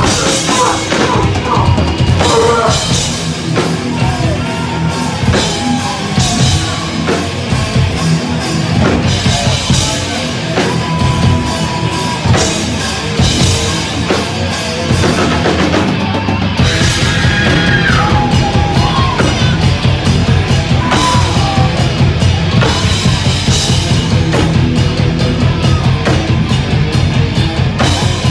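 Live heavy rock band playing loud, with electric guitars, bass guitar and drum kit. The band moves into a denser, driving part about halfway through.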